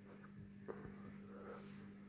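Faint handling of trading cards: a couple of soft clicks as the cards are moved and laid down, over a steady low hum.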